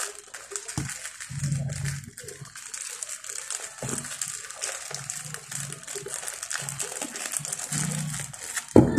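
Clear plastic packaging crinkling and rustling as hands pull and unwrap it, with a short sharp knock near the end.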